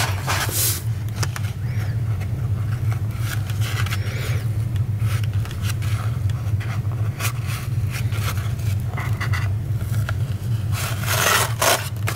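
Paper and lace trim rustling and scraping in irregular bursts as the trim is pulled through punched holes in a cardstock gift bag, over a steady low hum.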